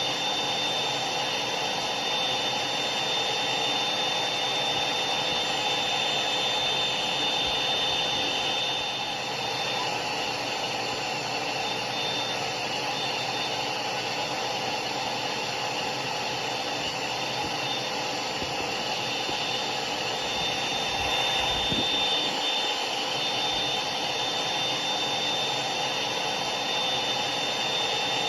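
Hair dryer running steadily: an even rush of air with a steady high whine and a lower hum from the motor.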